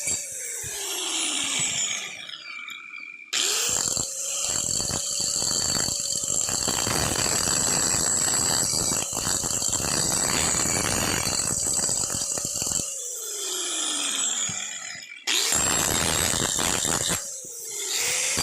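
Electric hand power tool switched on and off several times, its motor whining up to speed and winding down after each switch-off. While it runs there is a harsh grinding noise, typical of the tool working metal on the propeller. It winds down at the start, runs for about nine seconds from about three seconds in, winds down again, then starts up twice more near the end.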